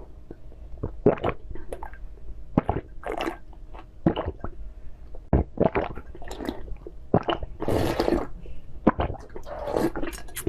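Close-miked wet eating sounds in irregular bursts: chewing, smacking and slurping of soft food, with one longer wet burst about eight seconds in.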